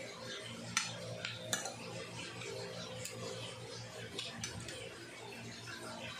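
Fingers picking and pressing rice and fish on a ceramic plate, with about five sharp clicks against the plate in the first four and a half seconds.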